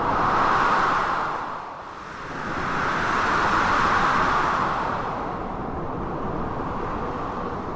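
Blizzard wind as a steady rush of noise, gusting up twice: once at the start and again, longer, in the middle, then easing.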